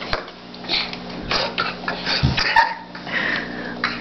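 A young boy forcing out a series of short burps, several in a row, as he burps his way through a count.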